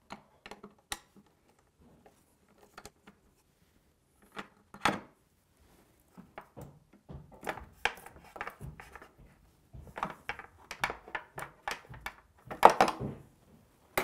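Handling noise of a 3.5-inch Seagate hard drive being removed from an iMac: a few light clicks of a T8 Torx screwdriver on the bracket screws, a single louder knock about five seconds in, then a busier run of clicks, knocks and scraping as the drive and its bracket are worked free, loudest near the end.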